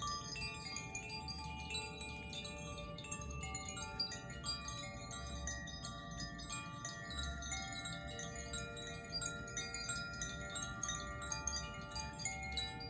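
Tuned meditation wind chimes played by hand: a constant tinkling of new strikes over many long, overlapping ringing tones.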